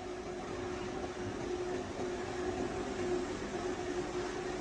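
Flying milling saw (cold-saw cut-off machine) on a steel pipe mill running, a steady mechanical drone with an even hum over it, as the saw carriage travels with the running pipe.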